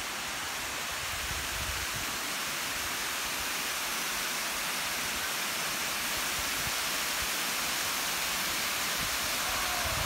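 Steady rushing of water from a wide tiered waterfall cascading over rock ledges into a pool, growing slowly louder.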